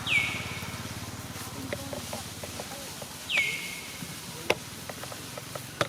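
A baby macaque monkey gives two high, thin cries about three seconds apart, each dropping sharply in pitch and then held briefly. Two sharp clicks follow near the end.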